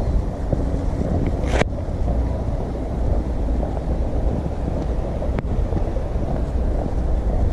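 Wind buffeting the microphone as a steady low rumble, with two sharp clicks, one about a second and a half in and one about five seconds in.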